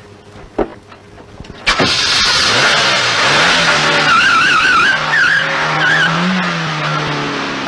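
A car door shuts, then the Opel saloon pulls away hard: a sudden loud rush of engine and tyre noise with a wavering tyre squeal in the middle, the engine note rising and falling as it drives off.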